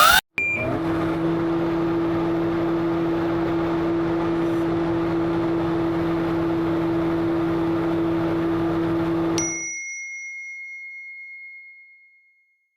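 Sound effect: a steady noisy rush with a low hum that stops abruptly about nine and a half seconds in, then a single bell ding that rings out for about two and a half seconds.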